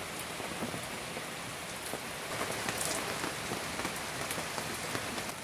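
Heavy rain pouring onto a sailboat's cockpit canvas and deck: a steady hiss dotted with many small sharp drop impacts.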